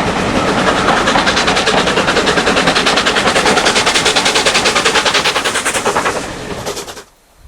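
Steam locomotive working hard, its exhaust beats coming fast and even, about nine a second. The sound fades near the end and then cuts off suddenly.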